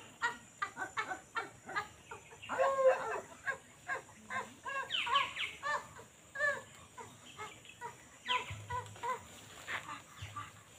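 Chickens clucking: a quick run of short calls, several a second, with a louder call just under three seconds in.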